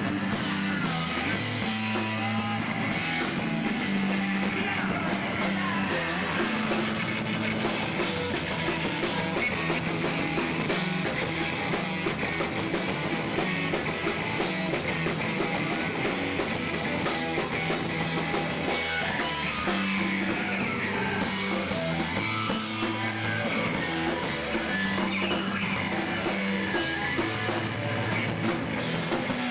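Rock band playing live, electric guitar and drum kit going without a break.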